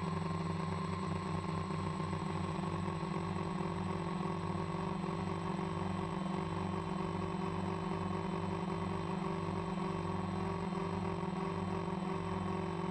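Quadcopter drone's electric motors and propellers humming steadily, heard from the drone's own onboard camera, with a slow wavering beat between the rotors.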